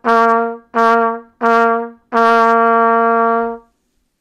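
Trumpet playing one low note, the written C of the lesson, tongued in a rhythm of three short quarter notes and then a longer held half note that stops about three and a half seconds in. Each note is cleanly articulated, with a small break between notes at the same pitch.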